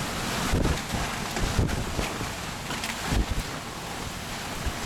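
Severe storm wind blowing hard with driving rain, a steady rushing hiss. Irregular gusts buffet the microphone in low rumbling jolts.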